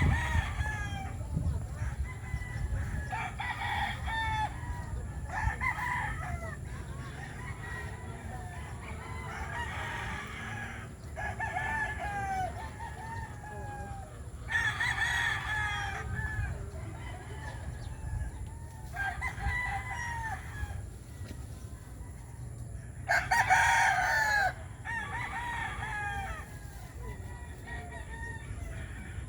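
Roosters crowing over and over, one crow every few seconds, the loudest about 23 seconds in, with chickens clucking between the crows.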